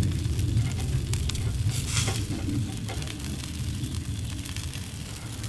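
Freshwater eel pieces sizzling and crackling on a wire grill over charcoal, with scattered sharp clicks and a louder crackle about two seconds in. A low rumble runs underneath.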